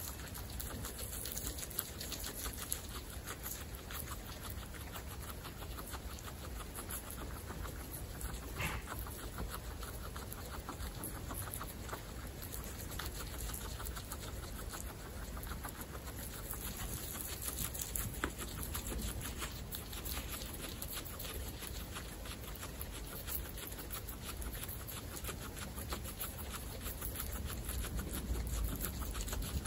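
Several guinea pigs chewing and nibbling fresh grass: a dense, continuous run of fast, small crunching clicks.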